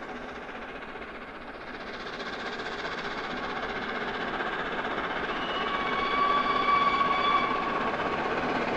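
Three-cylinder LNER Class A1 Pacific steam locomotive 60163 Tornado approaching with its train under power, a steady rushing noise growing louder as it nears. A thin steady high tone joins in for a couple of seconds past the middle.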